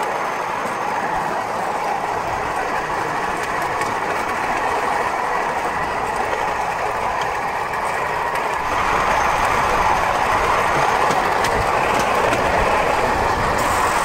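Steel wheels of a pedal-powered rail bike rolling along railway track, a steady rolling rumble with a few faint clicks. It grows louder about eight seconds in as the bike gathers speed.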